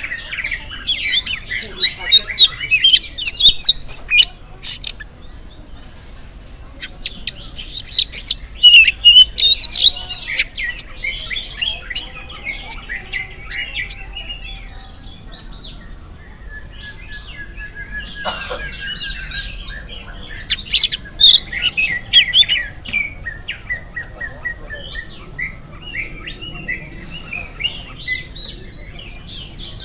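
Oriental magpie-robin in full song: fast, varied whistles mixed with sharp chattering notes. It sings in three loud spells, at the start, about eight seconds in and about twenty seconds in, with quieter phrases between them.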